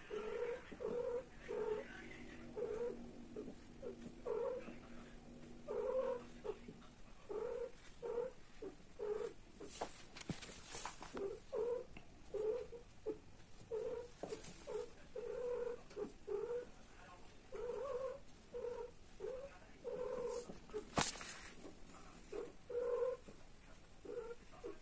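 Cats mating, one of them making short, low, rhythmic calls about twice a second. A few sharp clicks are heard near the middle and again later.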